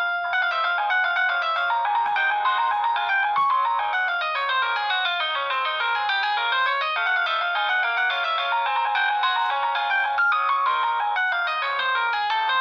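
Nokia 6630 mobile phone playing one of its polyphonic ringtones through its loudspeaker: a synthesized melody of quick notes in rising and falling runs.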